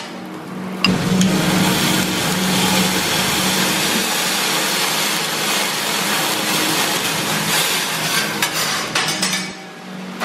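Teppanyaki griddle sizzling loudly as the fried rice on it is sauced and flambéed. The hiss starts suddenly about a second in and dies down near the end, with clinks of metal spatulas over a steady low hum.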